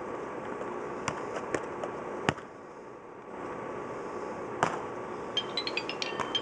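Steady background hum with a few sharp knocks, the loudest a little over two seconds in; about five seconds in, the outro music starts with a quick ticking run of rising notes.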